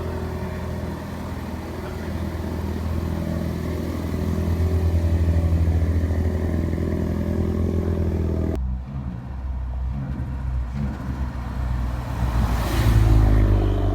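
Ford Focus ST's engine running with road noise. The sound changes abruptly about two-thirds of the way through, then swells loudly near the end.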